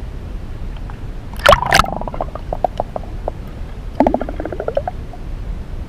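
Underwater gurgling and bubbling as a spearfisher dives, heard through the camera's own microphone. There is a loud splash-like burst about a second and a half in, and a second burst about four seconds in that breaks into a quick run of bubbling pulses rising in pitch.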